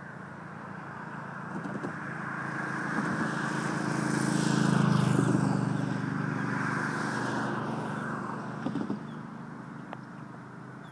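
A road vehicle passes by out of sight. Its engine and tyre noise swells to a peak about five seconds in and then fades away.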